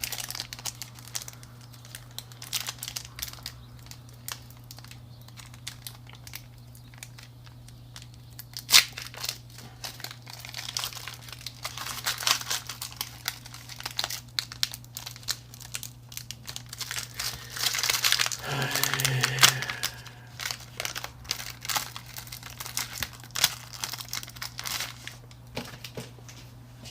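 Foil wrappers of Pokémon booster packs crinkling and cards being handled, in a run of small crackles and clicks. There is a louder crinkling, tearing stretch about 18 to 19 seconds in. A steady low electrical hum runs underneath.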